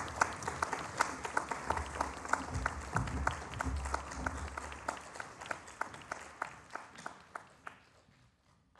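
An audience applauding, many hands clapping at once; the applause thins out and dies away near the end.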